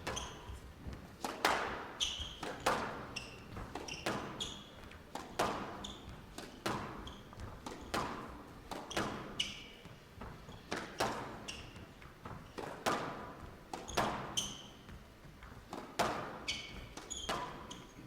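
A squash rally: the ball struck by rackets and smacking off the court walls about once a second in a steady exchange. Short high squeaks of players' shoes on the court floor come between the shots, and each hit rings briefly in the hall.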